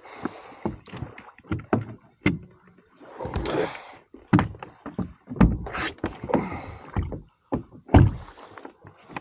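Fishing rods and gear being handled against the hollow plastic hull of a fishing kayak: a run of knocks, clicks and rustles, with a longer swish a few seconds in. The loudest are two heavy thumps, one about halfway through and one near the end.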